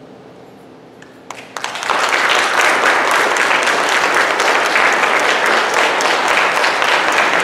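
The last piano chord dies away, then a few scattered claps about a second in quickly swell into loud, steady applause from the congregation.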